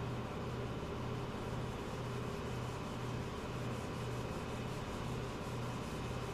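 Steady workshop noise: a constant hiss with a low hum that throbs about twice a second.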